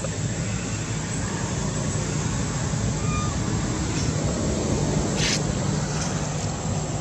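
Steady low rumble with a hiss, with a short sharp click about five seconds in.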